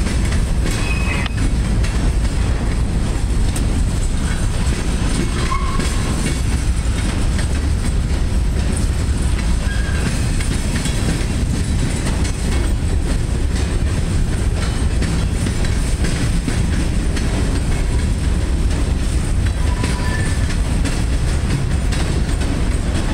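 Covered hopper cars of a freight train rolling past: a steady rumble of steel wheels on the rails, with clickety-clack over the rail joints.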